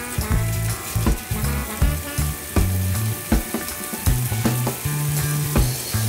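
Slices of firm tofu sizzling in hot cooking oil in a frying pan: a steady hiss. Background music with low notes and a slow, even beat plays over it.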